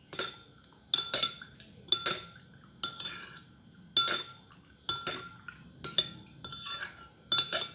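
Repeated clinks of a hard utensil striking a dish or pot, about one a second, some in quick pairs, each with a short ringing after it.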